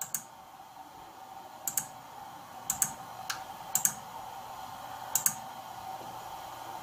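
Computer mouse button clicks while entering a PIN on an on-screen keyboard: a series of sharp clicks, most in quick pairs about a second apart, over a faint steady hum.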